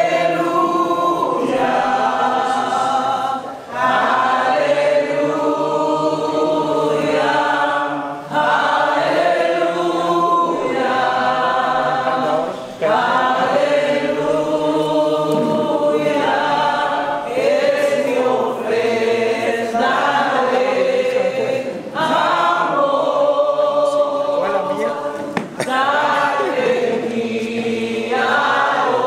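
A choir of many voices singing together in long held notes, in phrases that each begin sharply about every four to five seconds.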